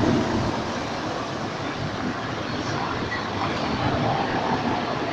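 Tatra T3 tram approaching on street track, with car traffic passing: a steady vehicle noise without a clear rhythm.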